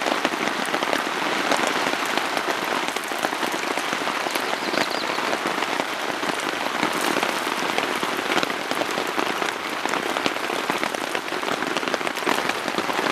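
Steady rain falling on a tarp overhead: a dense, unbroken stream of drop impacts.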